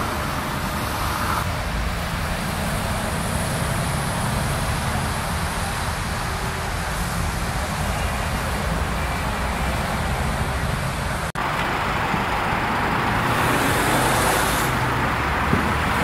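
Steady motorway traffic noise: vehicles passing on the autobahn with a low engine hum underneath. It drops out for an instant about eleven seconds in, and the hiss is louder after that.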